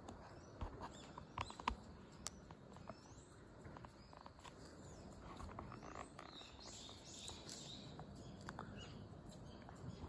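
Faint outdoor ambience: a few light handling clicks from the smartphone and its clip-on lens in the first couple of seconds, then faint high bird chirps about three seconds in and again around seven seconds.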